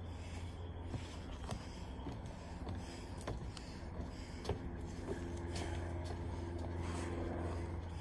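Footsteps on a wooden boardwalk: light knocks at a walking pace, over a steady low rumble. In the second half a low, steady hum with a held pitch joins in.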